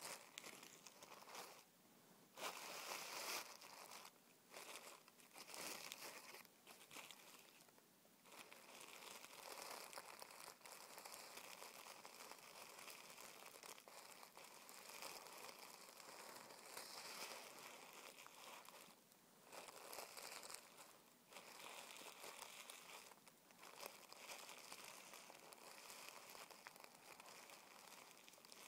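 Fingertips rubbing and scratching over a crinkled sheet of tissue paper: quiet, continuous crinkling and rustling, broken by a few brief pauses.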